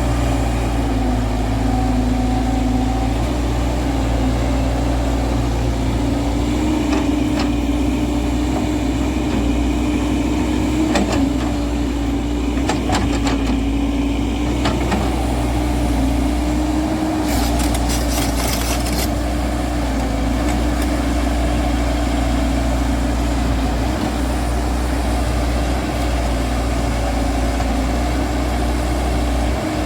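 JCB JS140 tracked excavator's diesel engine running steadily, with a few knocks and a short rattling burst of clicks partway through.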